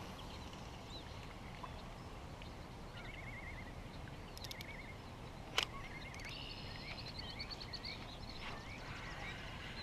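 Birds singing faintly: short warbled trills repeated every second or so, then higher whistled notes, over a low steady background hush. A single sharp click about five and a half seconds in.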